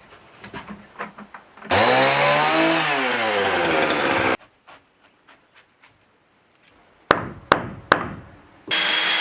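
Chainsaw cutting into wood for about three seconds, its pitch dipping under load and then recovering. Three sharp knocks follow, and near the end a power tool starts running at a steady pitch.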